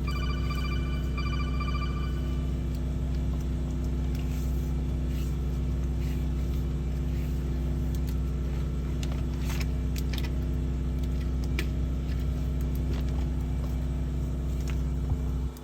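Sewer water jetter's engine and high-pressure pump running steadily under load while jetting a grease-clogged line, with a few light clicks. A brief high pitched pulsing tone sounds in the first couple of seconds, and the engine hum drops abruptly near the end.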